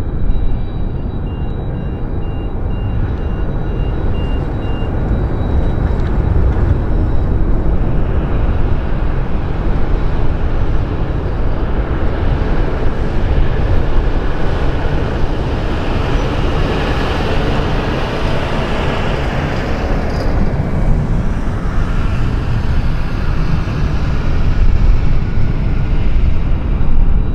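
Boeing KC-135R Stratotanker's four CFM56 turbofans running at taxi power: a steady jet rumble with a hissing whine that swells to its loudest around the middle and then eases.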